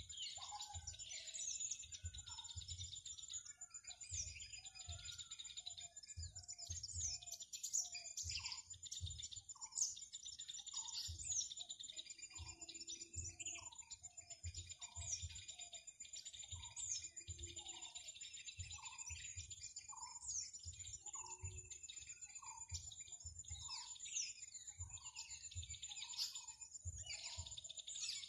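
A chorus of small birds chirping and twittering, with one bird repeating a short note about once a second and a steady high-pitched whine running underneath.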